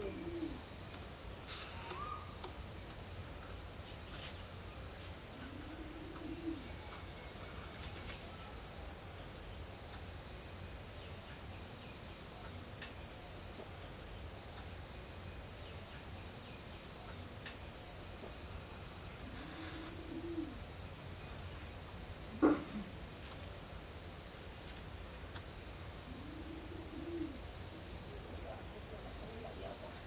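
Steady insect chorus, two even high-pitched tones, with a short, low cooing bird call repeating every several seconds. One sharp tap stands out about two-thirds of the way through.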